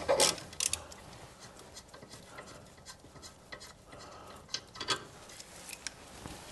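Socket ratchet clicking several times in quick succession as the 19 mm caliper bolt is undone, then fainter, scattered clicks and scraping of the tool on the bolt.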